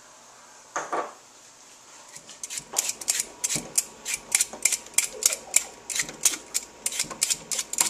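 A sweet potato being peeled by hand, a blade scraping off the skin in quick repeated strokes, about three a second, from a couple of seconds in. A brief knock comes about a second in.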